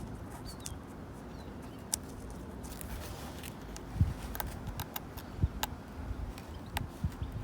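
Long fingernails scratching and tapping on a wooden bench: scattered short, sharp scrapes and clicks. Wind rumbles on the microphone underneath, with low thumps about four and five and a half seconds in.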